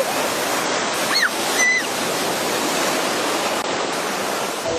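Shallow surf washing steadily around a child and a wading dog, with two short high-pitched cries a little over a second in.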